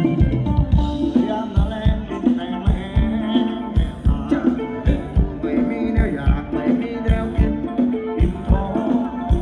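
Live band playing Thai ramwong dance music. A drum kit keeps a steady beat of about two strokes a second under guitar and a singer.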